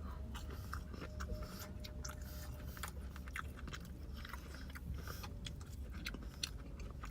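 A person chewing a mouthful of crispy fried popcorn chicken close to the microphone, with many small irregular crunches and mouth clicks throughout.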